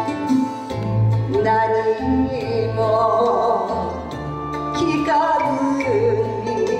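A woman singing a Japanese song into a microphone with vibrato over an instrumental backing with a bass line. The sung phrases come about a second and a half in and again about five seconds in.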